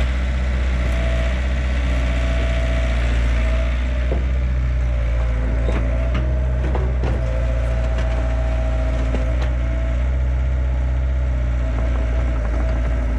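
Yanmar B50-1 mini excavator's diesel engine running steadily under hydraulic load, with a steady whine over the engine and scattered sharp knocks and cracks as the derailed rubber track is worked back onto its rollers and sprocket.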